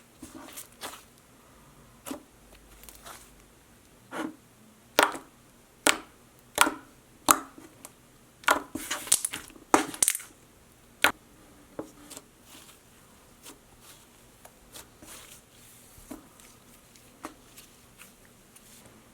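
Slime being squeezed and poked, giving an irregular string of sharp crunchy pops and clicks, thickest in the middle and fainter near the end.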